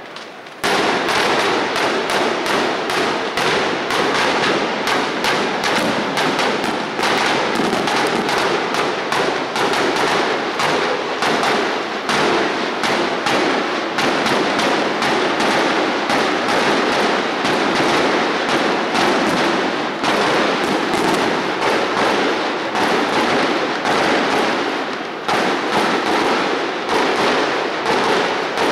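Sicilian batteria, a ground barrage of firecrackers, going off in a dense, rapid crackle. It starts abruptly about half a second in, keeps up a steady volley and dies away near the end.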